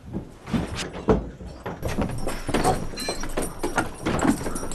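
Quick footsteps and knocks on wooden boards, then a horse's hooves shifting and stamping.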